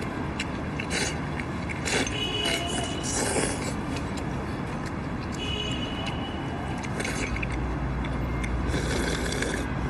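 A person slurping noodles from a bowl with chopsticks, in several short slurps, and near the end sipping broth from the tipped bowl, over a steady hum of city traffic.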